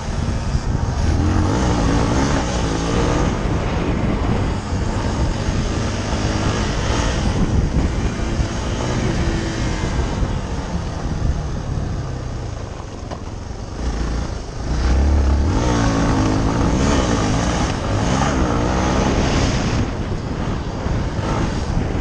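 Yamaha TT-R250's single-cylinder four-stroke engine under a rider on a dirt track, revving up and down through the turns. The revs drop off around twelve seconds in and surge back up about three seconds later.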